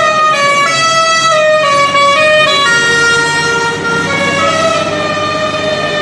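Indian truck's musical pressure horn playing a tune: loud held notes that step up and down in pitch one after another.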